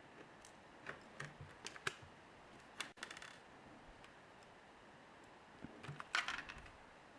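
Light, scattered clicks and taps of a small screwdriver and parts being handled on an iPhone 3G during disassembly, with a denser run of clicks about six seconds in.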